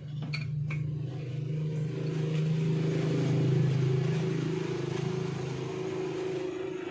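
A steady engine hum that starts suddenly, grows louder to about the middle and then eases off.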